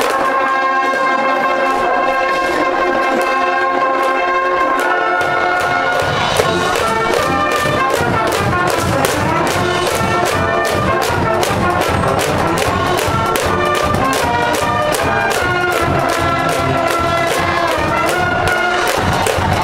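School cheering brass band playing a cheer tune, with trumpets and trombones carrying held melody notes. A steady drum beat joins in about five seconds in.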